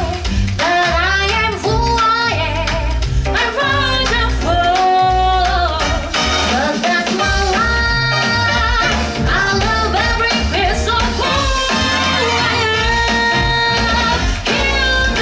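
Upbeat song with singing and a steady, heavy beat, played loud for a dance curtain call.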